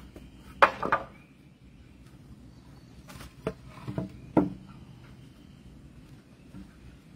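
Cedar fence boards knocking and clattering as they are handled and laid down. A loud pair of wooden knocks comes just under a second in, then several lighter knocks between about three and four and a half seconds.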